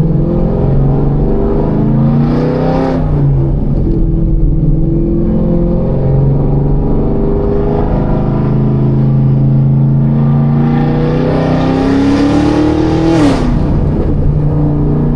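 Chevrolet Camaro ZL1's supercharged 6.2-litre V8 accelerating, heard from inside the open-top car: the revs climb and drop sharply at a gear change about three seconds in, hold steady, then climb again and drop at another shift near the end.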